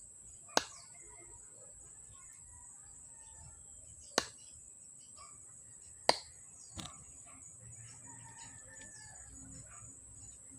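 Small metal electric-fan parts, the shaft spacers, being handled and fitted: four sharp clicks spread through the stretch. Birds chirp in the background over a steady high-pitched tone.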